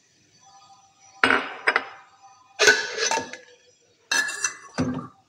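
Kitchenware clinking and knocking off-camera: three clusters of sharp clinks, some with a short ringing tone, as dishes and containers are set down and handled.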